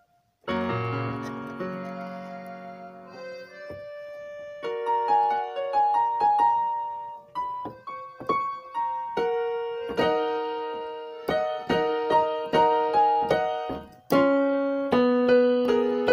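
Background piano music: a melody of separate struck notes over chords, starting about half a second in, with a brief break a couple of seconds before the end.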